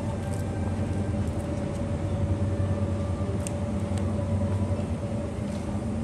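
Shopping cart wheels rolling over a tiled supermarket floor: a steady low rumble.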